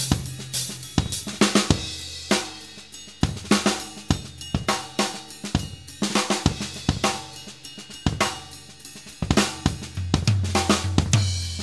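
Yamaha four-piece drum kit played in a groove of kick, snare, hi-hat and cymbals, with a low tom roll about ten seconds in, picked up by a single AKG microphone placed centrally near the bass drum's batter head.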